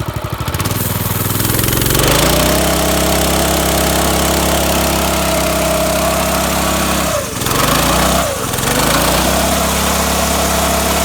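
212cc single-cylinder engine: a slow idle putter, then revved up about two seconds in and held at a steady high speed, dropping off and picking back up twice near seven and eight seconds.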